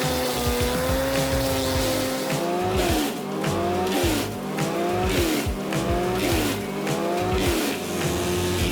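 Wood chipper engine running under load, its whine rising and falling in pitch about once a second as wood is fed through.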